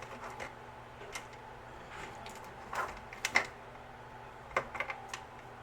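Rolls of washi tape being picked through and set down: scattered light clicks and knocks, the loudest about three and a half seconds in, over a faint steady hum.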